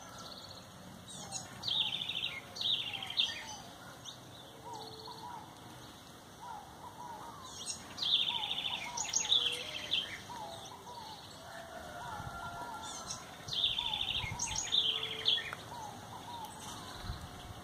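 House wren (corruíra) singing a quick, bubbly, trilling song three times, about every six seconds. Fainter, lower chirps from other birds run throughout.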